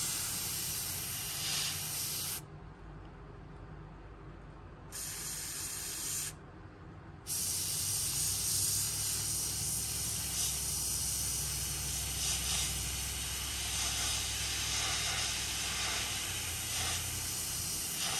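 Airbrush spraying paint in a steady hiss. The trigger is let off twice, about two and a half seconds in for a couple of seconds and again about six seconds in for about a second, before spraying resumes.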